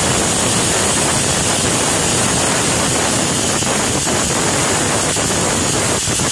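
An aluminium pressure cooker's weighted whistle blowing off steam: a loud, steady, high hiss with a few faint sputters. It is the single whistle that signals the dal and vegetables are cooked enough to turn off the gas.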